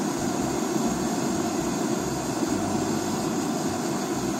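Gas torch burning steadily, a constant rushing noise as its flame is held against a wooden block.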